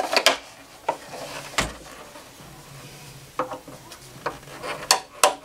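Screwdriver clicking and scraping against a hard plastic console trim panel while prying a stuck hazard switch out of its retaining tabs. There are a few sharp clicks and taps, one with a dull knock about a second and a half in, and two more near the end.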